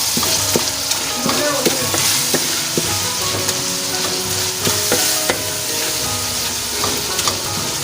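Beef mince (keema) sizzling in a karahi while being stirred, with the stirring spoon scraping and clinking against the pan many times over.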